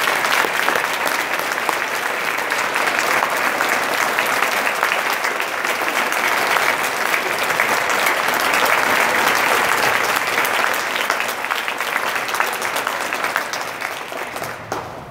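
Audience applauding, a dense, steady clapping that fades away near the end.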